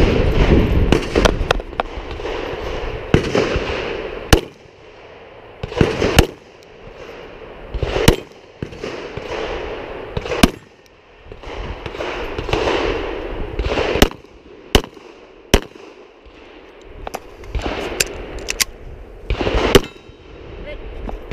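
Glock 27 subcompact .40 S&W pistol firing about a dozen loud shots, often in pairs less than a second apart, with pauses of a few seconds between strings. A steady rushing noise fills the gaps between shots.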